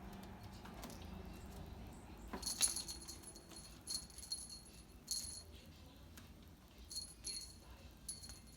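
A small bell jingling in several short bursts, the first about two and a half seconds in and the loudest.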